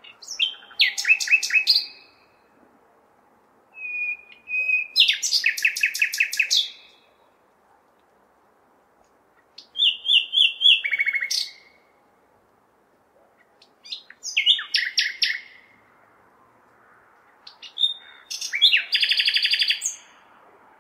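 Nightingale singing: five loud song phrases of about two seconds each with short pauses between them, each made of fast repeated notes and trills. A faint steady hum of city noise lies underneath.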